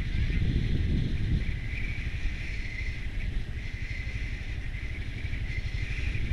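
A vehicle driving along a highway: a steady low rumble of engine and road noise with a constant higher hiss over it.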